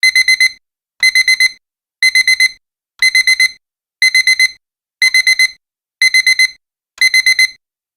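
Digital alarm-clock beeping: quick groups of four short, high beeps, one group every second, signalling that the one-minute countdown has run out.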